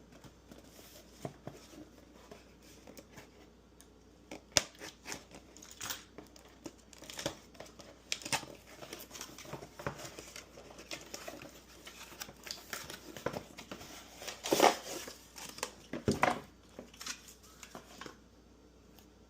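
Packaging being handled and opened during an unboxing: crinkling and tearing with irregular clicks and knocks, loudest near the middle, dying away shortly before the end.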